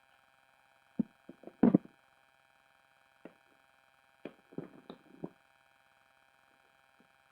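Short knocks and clatters of speaker parts and tools being handled on a workbench, in small groups, the loudest about one and a half seconds in, over faint steady background tones.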